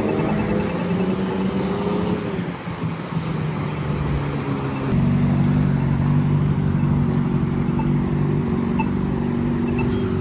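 Road traffic engines running at an intersection, a steady hum that grows louder about five seconds in. Over it, a Polara iNS2 crosswalk push-button's rapid ticking fades out in the first second, and its slow locator tick, about once a second, comes through near the end.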